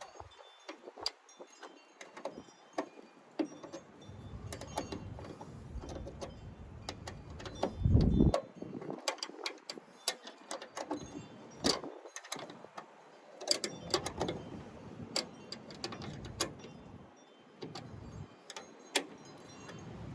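Hand-work clatter at a pickup's tail light: scattered small metallic clicks and clinks of tools and screws being handled, with one louder thump about eight seconds in.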